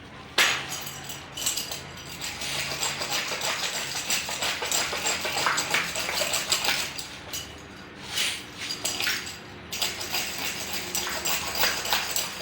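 Workshop tool work: a harsh, hissing scrape full of small metallic clicks and clinks, broken by two short pauses, about eight and nine and a half seconds in.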